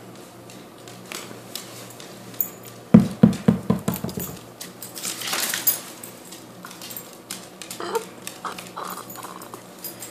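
A calico cat scuffling on a carpeted cat condo as it swats at a hand: a quick run of about seven thumps about three seconds in, then a rush of scratchy noise lasting about a second, and a few faint short scuffs near the end.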